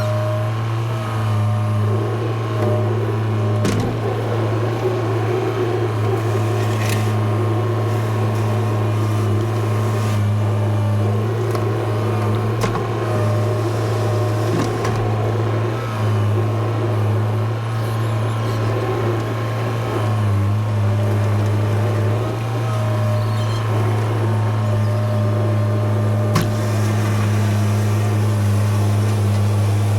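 An engine running steadily at one constant speed, with a few faint knocks over it.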